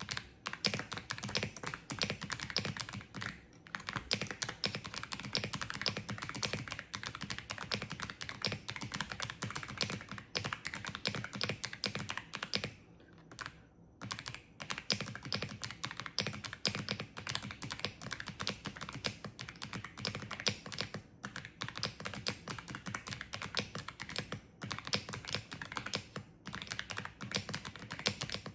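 Fast typing on a wireless mechanical keyboard: a dense, rapid stream of clicky key presses, with brief pauses about four seconds in and near the middle.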